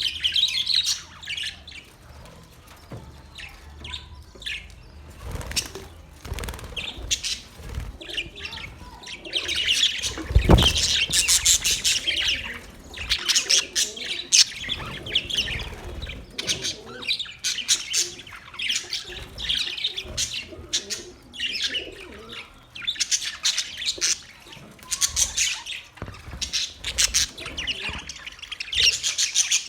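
A colony of budgerigars chirping and chattering continuously, with louder spells of squawking. A single low thump comes about ten seconds in.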